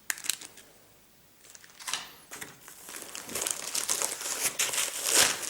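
Unboxing packaging being handled: a click at the start and a few brief rustles, then continuous crinkling and rustling from about halfway, getting louder toward the end.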